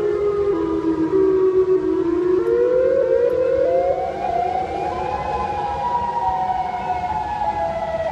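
Outdoor tornado warning siren sounding, its tone sinking slowly, then winding back up in pitch from about two and a half seconds in and holding steady near the end.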